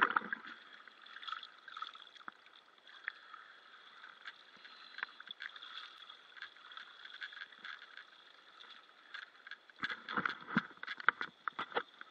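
Faint water sloshing and dripping with scattered light clicks, and a cluster of louder knocks about ten seconds in.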